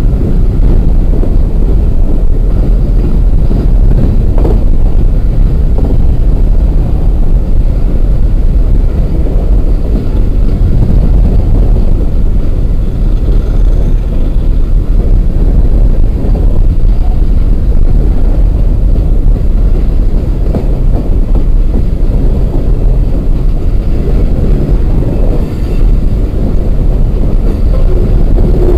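Empty open-top coal cars of a freight train rolling past, a steady loud rumble of steel wheels on the rails.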